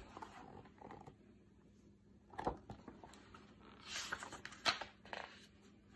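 Pages of a hardcover picture book being handled and turned: a brief paper rustle about four seconds in, with a few light taps and clicks around it.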